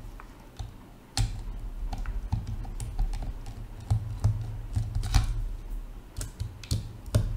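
Small Phillips screwdriver taking screws out of a Sena 30K intercom's plastic case: irregular small clicks and taps of the bit and the handled housing, with a few sharper clicks about a second in, near the middle and near the end.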